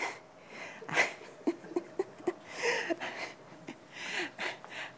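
A woman laughing: breathy laughter with a quick run of short 'ha's, about four a second, near the middle.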